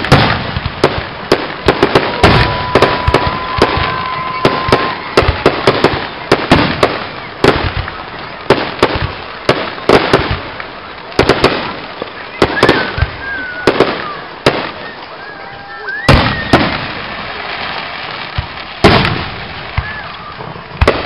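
Aerial fireworks bursting overhead: a rapid run of sharp bangs and crackles, several a second at first, thinning out in the second half to a few louder single booms.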